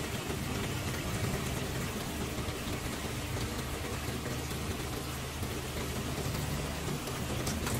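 Steady patter of falling water, even and unbroken, with a low hum underneath.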